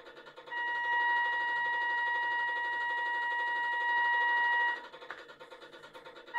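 Sound module of a 1:25 scale RC tugboat model playing a ship's horn through its small speaker: one long steady note, starting about half a second in and held for about four seconds.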